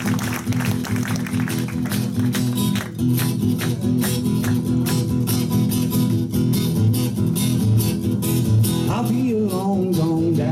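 Live acoustic guitar strummed in a steady rhythm, playing a song's introduction. A voice comes in near the end.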